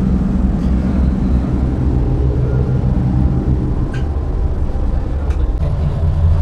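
Car ferry's engines running underway: a steady low rumble with a deep hum. The hum changes a little near the end.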